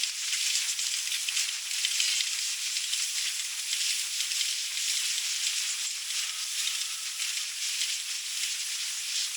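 Steady hissing rush of sea water and wind on a sailing yacht under way.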